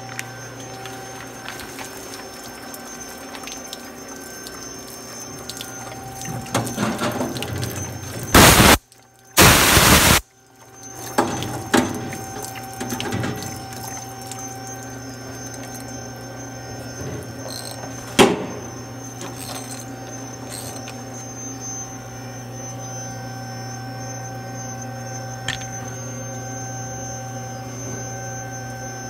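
Matsuura MC500V CNC vertical mill running with flood coolant splashing and pouring over the work, over a steady machine hum. Near the middle come two loud blasts of noise, each about a second long.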